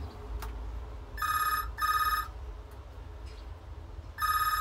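BT payphone's electronic ringer sounding the British double ring for an incoming call: a pair of short trills about a second in, and the next pair starting near the end, about three seconds later.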